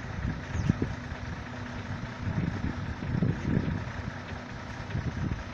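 Conveyor and truck machinery running with a steady low engine-like hum, with irregular low thuds and knocks.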